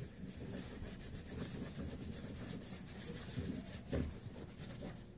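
Sponge rubbed back and forth over cardstock to blend ink, a steady soft scratchy rubbing.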